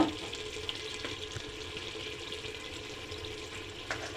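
Mutton liver cooking down in a pot, with a steady frying hiss as the last of its water dries off. One sharp clink at the very start.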